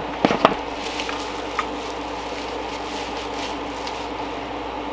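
A few short clicks and rustles of a small boxed item being handled, bunched near the start with one more a little later. Under them is a steady room hum with several held tones.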